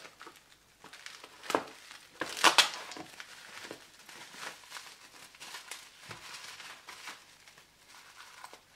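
Plastic bubble wrap crinkling and rustling as it is handled and cut open with scissors, with two louder crackles about a second and a half and two and a half seconds in.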